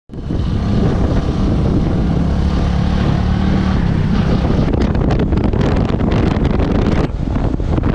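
Bajaj V15 motorcycle's 150cc single-cylinder engine running at riding speed, with wind rushing over the microphone. The engine note is clearer in the first half; after about five seconds the wind turns gustier.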